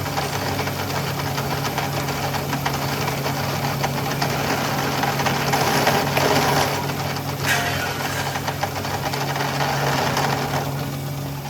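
A motor-driven workshop machine running steadily: a constant motor hum under a dense, rough rattling and scraping noise, a little louder around six seconds in.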